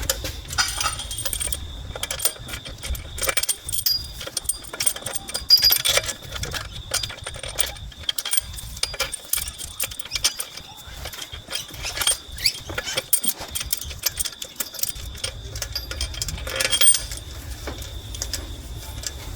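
Metal tools and engine parts being handled during cylinder-head reassembly: irregular clinks, taps and knocks of metal on metal.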